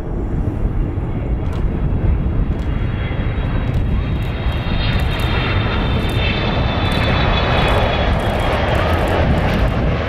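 Airliner's engines passing at close range: a steady heavy rumble with a high whine in the middle that falls slightly in pitch as it goes by.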